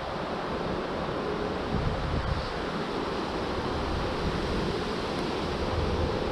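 Wind blowing over the microphone: a steady rushing noise with uneven low rumbling gusts.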